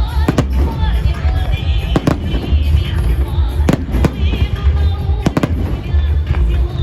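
Fireworks display: sharp bangs of shells bursting every second or so, some in quick pairs, over a steady low rumble, with music playing.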